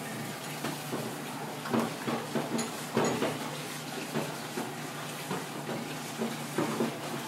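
Kitchen background noise: a steady hiss with a few light, irregular knocks and clatter of a knife and utensils on a plastic cutting board.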